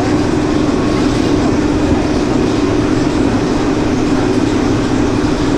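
Roller coaster train being hauled up a steep lift hill: a steady, even mechanical drone from the lift mechanism.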